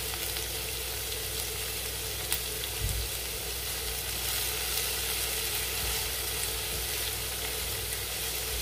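Agretti sizzling steadily in hot oil in a non-stick frying pan while a spoon stirs through them, with a soft knock about three seconds in.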